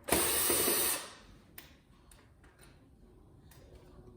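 Cordless power drill/driver running in one burst of about a second, then a few faint clicks and knocks of parts being handled.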